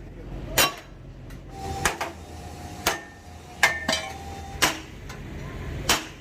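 Hammer blows on metal, about one a second, several of them leaving a short metallic ring.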